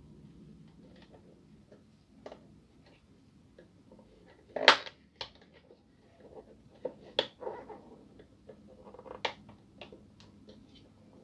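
Scattered plastic clicks and knocks as a laser printer drum unit's housing is handled and a small screwdriver works at its end cover, with one sharp clack a little before halfway.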